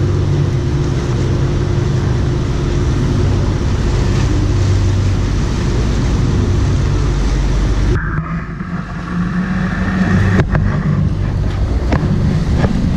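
Sightseeing boat's engine running steadily, heard from on board under a rushing noise. About eight seconds in the sound changes abruptly, and a few short knocks follow.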